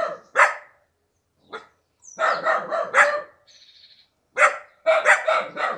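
Dogs barking in quick runs of several barks, with short pauses between the runs.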